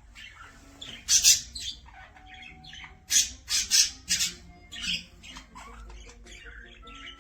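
Cockatiel squawking: one loud screech about a second in, then a run of four or five loud, harsh calls between about three and five seconds in, with softer chirps between.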